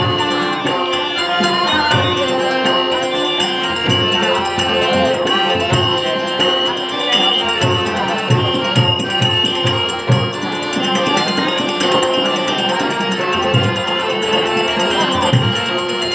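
Dashavatar theatre accompaniment: a harmonium holding steady chords, pakhawaj drum strokes in irregular clusters, and a fast, steady jingle of zanj hand cymbals.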